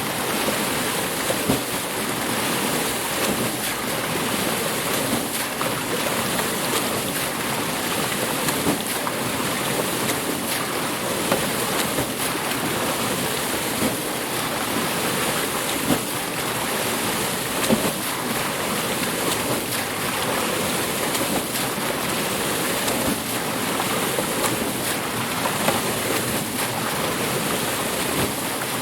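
Water mill: water rushing and splashing steadily at a water wheel, with a few brief louder moments.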